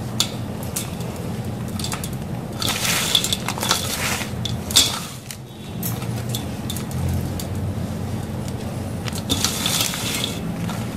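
Dry, gritty sand blocks crushed and crumbled between fingers in a glass bowl, giving a crunchy crackle with sharp little clicks in two stretches, a few seconds in and again near the end. A steady low hum runs underneath.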